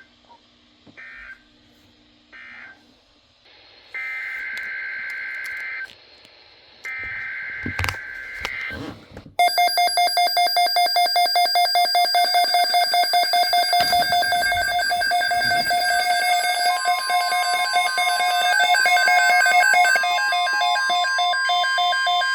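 NOAA Weather Radio EAS signalling. It opens with three short two-tone data bursts, the end-of-message code of the warning just read. Two longer data bursts follow, the SAME header of the next alert. From about nine seconds in a loud, rapidly pulsing electronic alert alarm sounds, and about seven seconds later it is joined by the steady 1050 Hz weather-radio attention tone, announcing the next alert.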